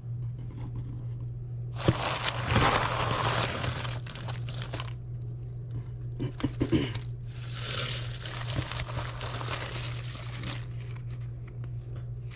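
Black crinkle-cut shredded paper filler and plastic-wrapped items rustling and crinkling as hands dig through a packed cardboard box, in two long bouts a few seconds apart, with a few light knocks between them.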